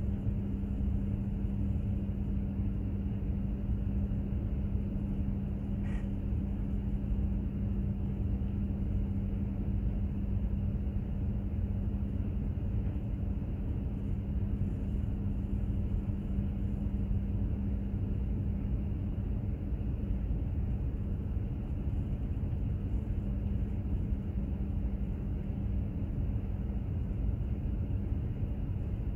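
Container ship under way: a steady low rumble of the ship's machinery, with a constant low hum over it.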